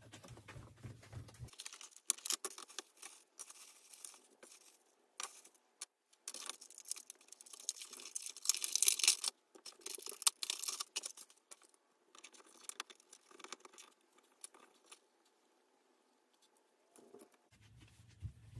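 Plastic packaging and bags crinkling and tearing while action figures are unwrapped, with scattered clicks and rattles of small plastic parts. The rustling is loudest in a stretch from about seven to nine seconds in, then thins to occasional ticks.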